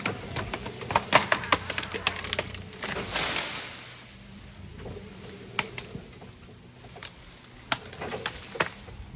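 Wood cracking and branches snapping as a tree is forced over by a forklift: a dense run of sharp cracks in the first three seconds, a rushing crash about three seconds in, then scattered snaps near the end. A low engine hum runs underneath.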